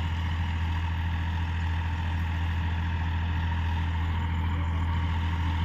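Diesel tractor engine running steadily under load while tilling, a constant low hum with no change in pitch.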